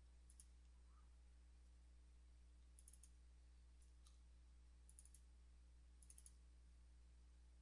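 Near silence with faint computer mouse clicks, mostly quick double and triple clicks in about five small clusters, over a steady low electrical hum.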